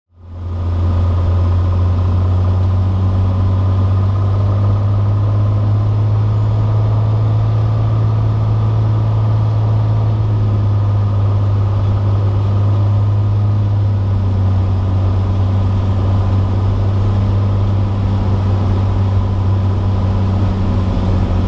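Cessna 182's piston engine and propeller droning steadily, heard from inside the cabin during the landing approach, with a slight change in tone about two-thirds of the way through.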